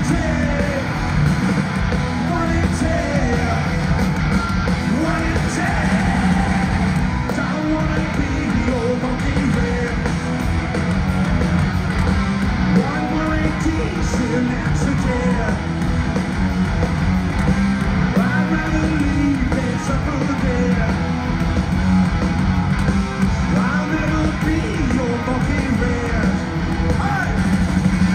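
Live rock band playing loud through an arena PA, heard from the audience: distorted electric guitars, bass and drums, with sung vocals over them.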